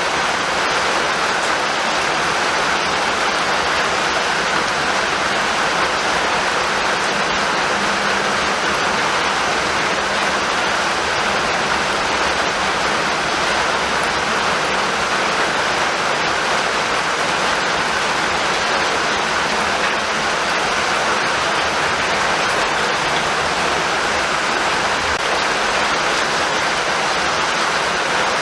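Steady rainfall: an even, unbroken hiss of rain, with no thunder.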